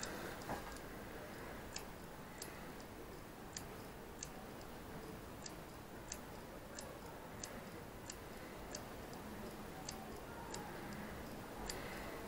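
WD My Passport external hard drive clicking repeatedly after power-up, faint, even clicks about three every two seconds. The repairer takes it for the drive not getting enough power.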